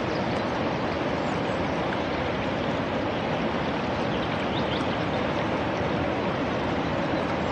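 Steady rushing of a stream, an even flow of water noise with no breaks.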